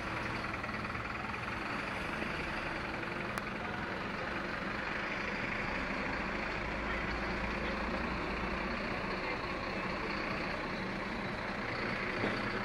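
Fire trucks' diesel engines running as they drive slowly past on cobblestones, a steady low rumble that grows heaviest midway as a large ladder truck passes close.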